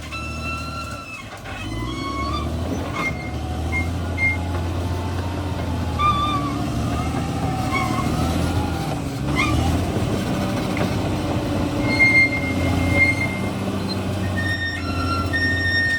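Crawler bulldozer's diesel engine running steadily under load, with intermittent high squeals on top.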